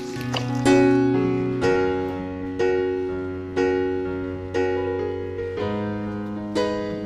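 Background music: piano chords, a new chord struck about once a second, each ringing and fading before the next.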